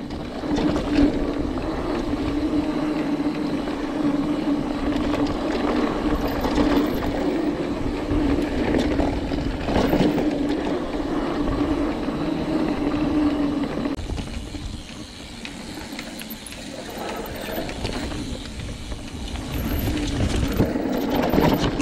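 Mountain bike rolling fast down dirt singletrack, heard from a handlebar-mounted camera: continuous tyre noise, rattle from the bike and wind rush on the microphone, with a steady hum that fades about two-thirds of the way through as the sound eases for a few seconds.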